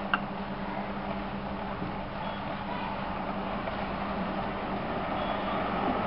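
Steady background hum and rushing noise, with one sharp click just after the start.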